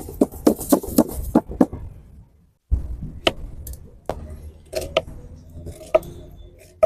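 Rapid knife chops on a cutting board, about four or five a second, stopping about two seconds in. After a short silent break come scattered single knocks and clicks of kitchen utensils.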